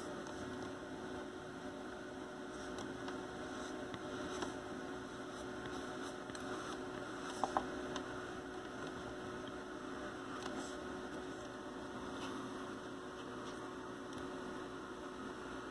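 Steady low electrical hum over faint room noise, with a few faint light scratches from a pencil tracing over tracing paper and two small clicks about seven and a half seconds in.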